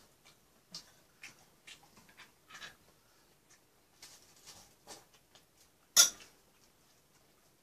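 Small eating noises at a table: soft clicks of metal chopsticks and rustling as food is wrapped in sheets of seasoned laver (gim). There is one sharp clack about six seconds in.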